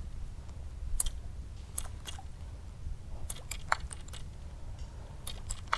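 Faint, irregular clicks and ticks from a baitcasting reel and rod as a small topwater stick bait is cranked and twitched back across the water, over a low steady rumble.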